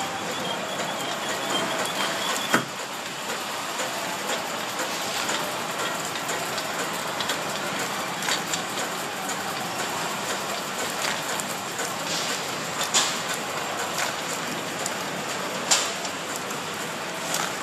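ZHA-450S horizontal flow-wrapping machine running, packing single AA batteries: a steady mechanical clatter and hiss, with a few sharper clicks standing out.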